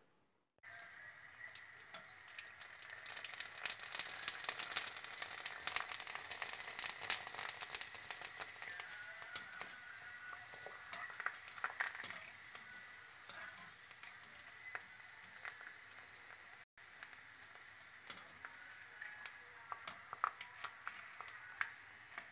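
Kerupuk crackers deep-frying in hot oil in a wok: a steady sizzle dotted with sharp crackling pops as they puff up, loudest in the first half, with a brief break about two-thirds through.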